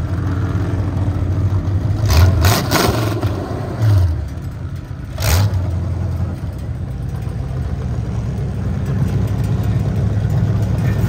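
An engine running steadily, rising briefly in pitch a few times in the first half, with short bursts of rushing noise about two and five seconds in.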